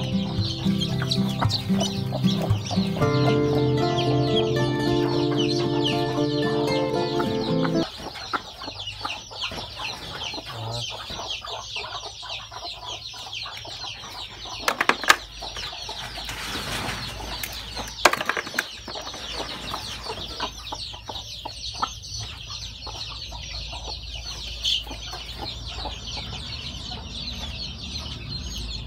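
Newly hatched chicks peeping continuously in quick, high chirps, with music playing over them that stops about a quarter of the way in. A couple of sharp knocks around the middle.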